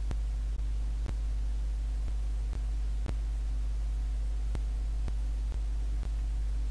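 Steady low electrical hum, with faint single clicks about once a second.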